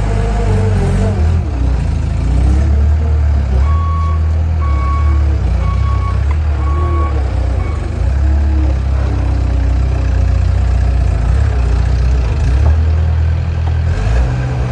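Skid steer loader engine running steadily under load. A few seconds in, its reversing alarm beeps four times, about once a second.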